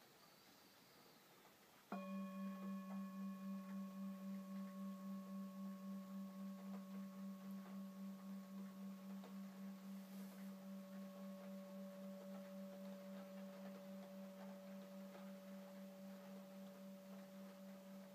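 Tingsha cymbals struck together once about two seconds in, then a long ringing tone with a slow pulsing beat that fades gradually.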